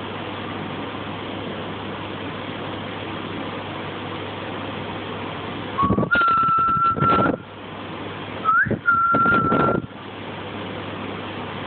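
A person whistling two long, steady high notes about a second apart, each sliding up into its pitch, with breathy noise alongside, over a steady hiss.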